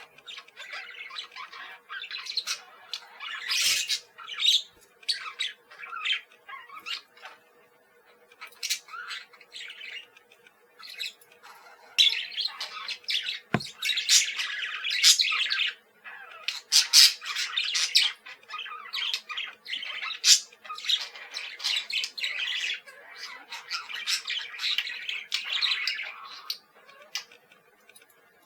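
Parakeet chattering and squawking in quick runs of short, high chirps and calls, with a couple of brief lulls.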